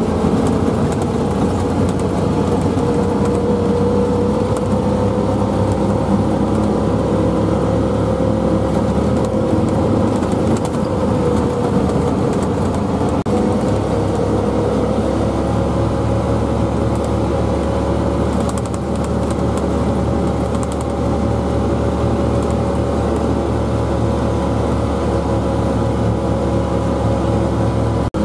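Track-equipped utility vehicle driving over a snowy mountain road: the engine and track drive run steadily with a low hum and a whine that drifts slowly up and down in pitch.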